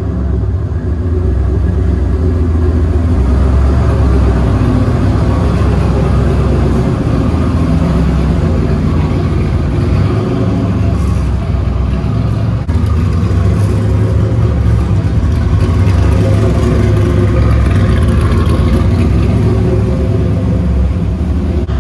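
Chevrolet C10 pickup's engine running, a loud, deep exhaust rumble as the truck drives slowly by and into the shop. The low rumble eases briefly a little past the middle, then returns.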